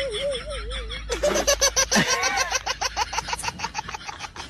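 People laughing: a long run of quick, repeated ha-ha pulses that starts about a second in, after a wavering tone dies away.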